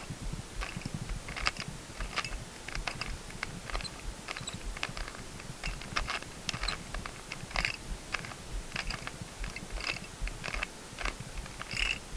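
A Rubik's cube being turned through a long algorithm, giving a run of quick, irregular plastic clicks as the layers are twisted.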